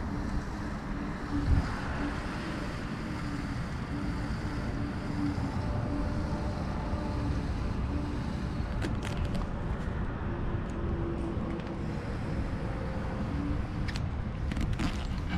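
Steady low vehicle rumble with wind on the microphone, a thump about a second and a half in, and a few light clicks and rattles near the end.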